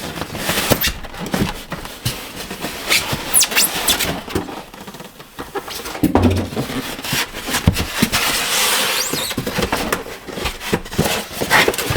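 Unpacking noises from a sewing machine's box: cardboard and packing material rustling and scraping, with scattered knocks and a few short squeaks.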